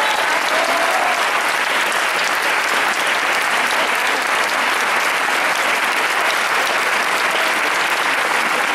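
Audience applauding, a dense steady clapping that neither builds nor fades.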